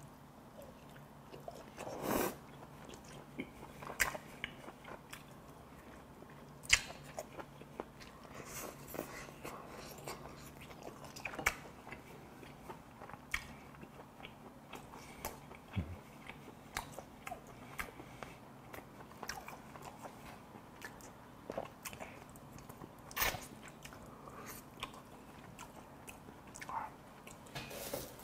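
A man chewing braised kimchi and pork back ribs close to a clip-on microphone: irregular wet mouth clicks and smacks, with a few louder clicks spread through.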